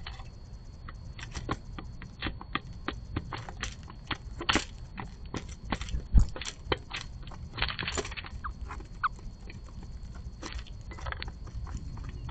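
Irregular sharp clicks and taps of northern cardinals and mourning doves pecking and cracking seeds in a cardboard box, with one loud thump about six seconds in as a cardinal flies close past.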